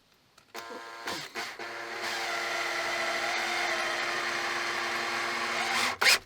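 Power drill driving a large screw through a square washer to mount the vise: a steady motor whine that starts about half a second in and grows louder at about two seconds. Near the end it gives way to a quick run of rhythmic scraping strokes, about four a second.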